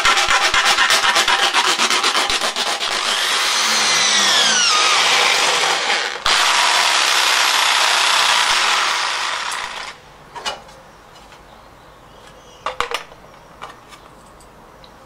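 Round file rasping with rapid strokes around a hole in thin aluminium sheet, then an electric drill running steadily as it bores through the aluminium plate, stopping about ten seconds in. A few light handling knocks follow.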